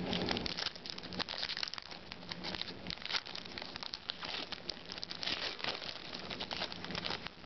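Foil wrapper of a baseball card pack crinkling and tearing as it is pulled open by hand, a dense run of crackles.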